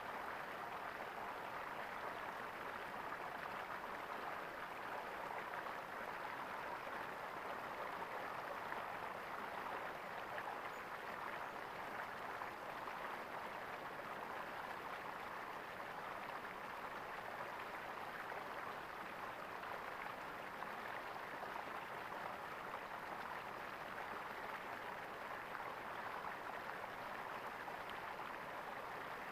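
Flowing water gurgling steadily, as in a small stream.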